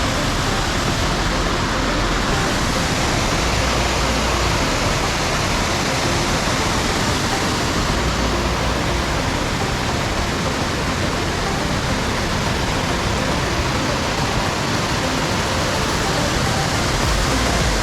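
Steady, loud rush of white water from Bald River Falls.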